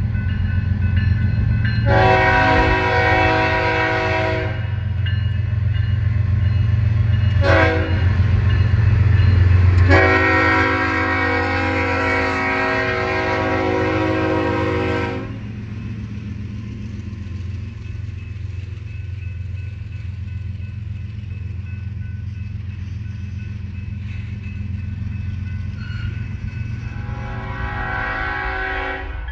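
Canadian Pacific diesel freight locomotive passing close with its engine rumbling, sounding its multi-chime air horn in a long blast, a short toot and a second, longer blast of about five seconds. Afterwards the lower rumble of freight cars rolling by, and near the end another train's horn sounds, quieter.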